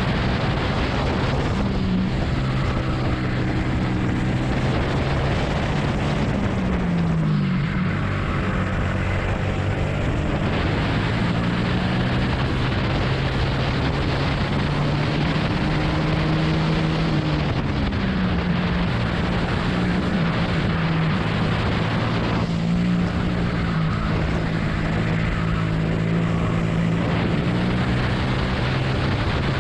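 Onboard sound of a 250 cc four-stroke, 20 hp rental go-kart engine running hard through a lap. The engine note drops about six seconds in and again around seventeen seconds in, then climbs back up as the kart accelerates.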